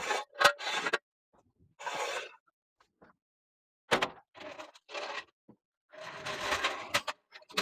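Metal clanks and scraping of a steel floor jack and jack stand being handled and rolled across a concrete garage floor as a pickup is lowered. It comes in several short bursts, with sharp knocks near the start, about four seconds in and about seven seconds in.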